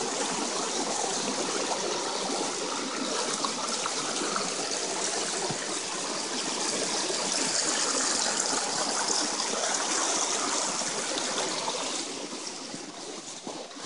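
Small forest stream running and trickling over rocks, a steady rushing wash of water that gets a little softer near the end.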